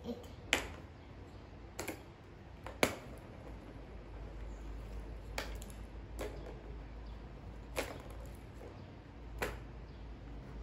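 Sharp plastic clicks and knocks, seven of them at uneven intervals, from a tiered plastic ball-track toy being handled.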